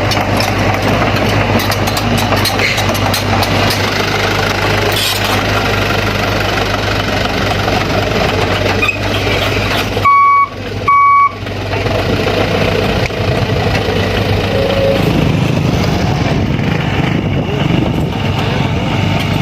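Diesel engine of a Sany SY 75C excavator running steadily while working. About ten seconds in, a reversing alarm gives two short, loud beeps.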